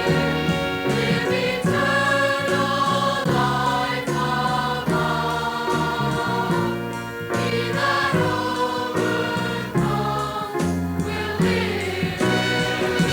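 Gospel choir singing sustained chords with instrumental accompaniment.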